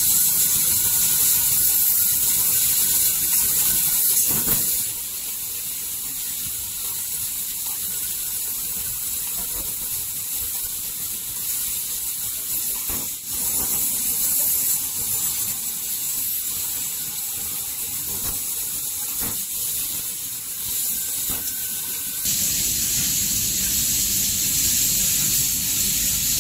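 Fiber laser cutter cutting sheet metal: a steady high hiss from the assist-gas jet at the cutting head. It drops in level about five seconds in, comes back up around the middle, drops again, and rises once more near the end.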